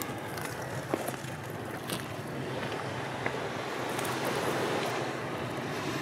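Steady outdoor background noise, a rushing haze with a faint low hum underneath, and a few faint ticks about one and two seconds in.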